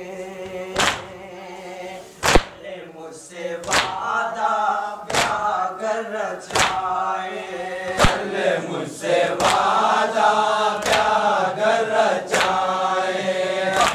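Voices chanting a Muharram noha (mourning lament) in Urdu/Hindi. A sharp slap lands about every one and a half seconds in time with the chant, typical of matam, chest-beating by the mourners.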